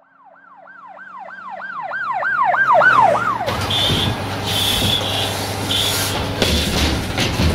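Emergency vehicle siren in a fast yelp, its pitch rising and falling about three times a second and growing louder. About halfway through it gives way to a loud rushing hiss over a low hum.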